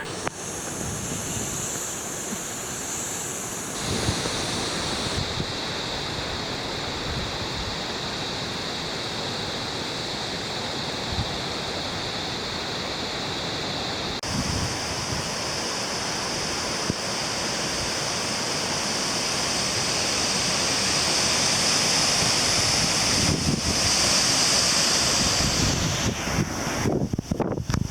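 Steady rushing of flood-swollen river water from a river that has burst its banks, mixed with wind buffeting the microphone; it grows louder in the second half and turns choppy near the end.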